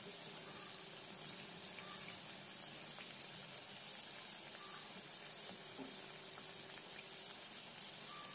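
Beetroot and dal vadas deep-frying in hot oil: a steady sizzle with a few faint clicks.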